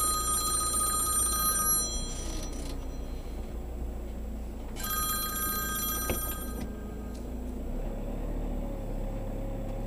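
Telephone ringing, two rings about three seconds apart and each around two seconds long, over a steady low hum.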